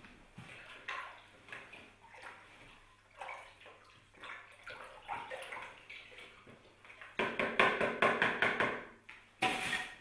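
Water sloshing and splashing in a plastic bucket as it is scooped and handled by hand, with knocks from the bucket. The splashing and knocking get louder and busier near the end.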